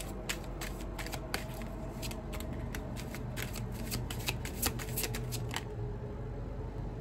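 A deck of tarot cards being shuffled by hand: rapid, irregular flicking clicks of card against card that stop about five and a half seconds in, over a low steady hum.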